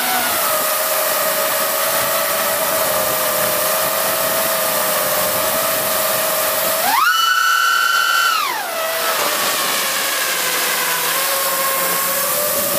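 FPV quadcopter's brushless motors and propellers, heard from on board as a steady high whine over a hiss. About seven seconds in, the whine jumps sharply up in pitch and holds for about a second and a half as the throttle is punched and the quad climbs, then drops back to its cruising pitch.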